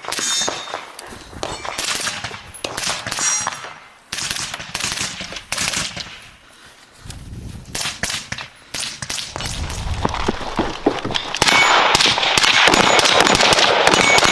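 Gunshots from a training firefight, with sharp metallic clangs among them. The shots come irregularly at first, then about twelve seconds in turn into a dense stretch of rapid fire.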